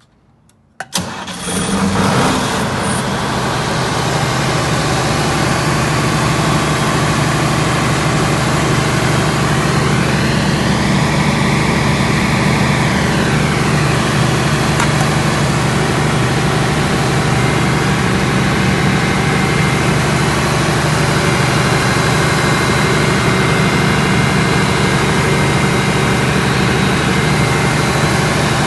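Cummins diesel generator set starting about a second in and settling within a second or two into a loud, steady run.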